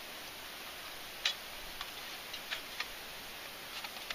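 Small metallic clicks and taps from a folding stainless steel wood stove's panels and pin being handled: one louder click about a second in, then a few fainter ones scattered through.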